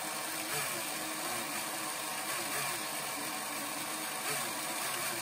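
Battery-operated tin toy airliner's small electric motor and gearing whirring steadily inside the tin body while it runs its boarding-door and stewardess action.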